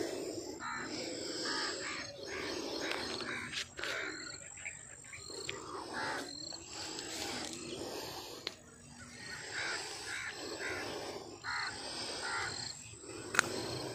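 Birds calling, with a single sharp click near the end.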